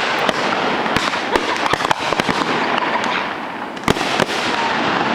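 Fireworks display: dense, continuous crackling with many sharp pops and bangs, and a brief whistle about four seconds in.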